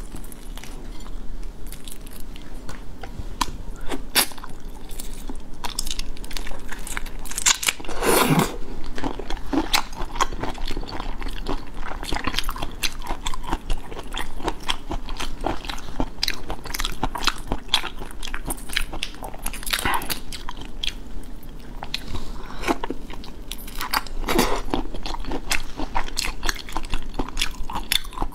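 Close-miked shell of large shrimp cracking and tearing as it is peeled by hand, mixed with chewing: a dense run of small clicks and crackles with a louder crack every few seconds.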